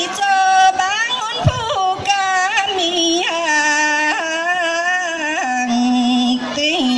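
A solo singer's voice amplified through a handheld microphone, singing a slow melody of held, wavering notes with slides between them, settling on a long low held note near the end.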